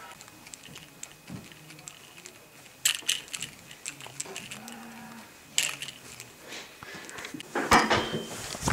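A low, drawn-out moaning voice, wavering in pitch, broken by bursts of rustling and knocking about three seconds in, again past halfway, and loudest near the end.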